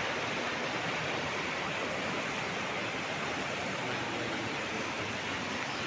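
Floodwater rushing in a steady, even roar with no breaks.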